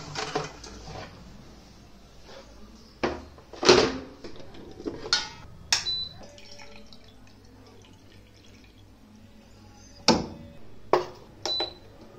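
Clicks and knocks of switches and kitchenware being handled, with a short high beep from a Prestige induction cooktop as it is powered on about halfway through and another as its buttons are pressed near the end.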